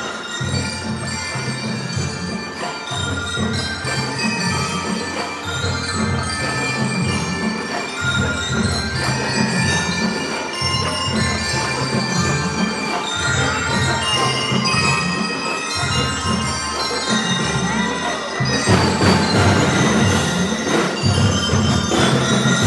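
Drum and lyre corps playing a Christmas tune: bell lyres ring out the melody over a steady drum beat. The band gets louder about three-quarters of the way through.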